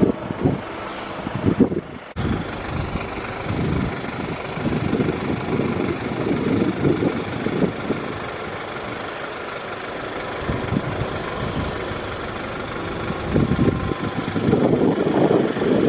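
BMW R1100RT's air- and oil-cooled boxer twin running on the move, with a steady rush of noise over it. The sound drops out briefly about two seconds in and grows louder near the end.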